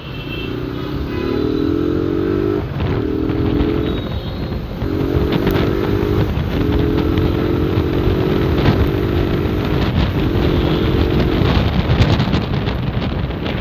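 Motorcycle engine running under throttle while riding in traffic, its note climbing over the first couple of seconds and breaking off briefly several times before picking up again, over road and wind rumble.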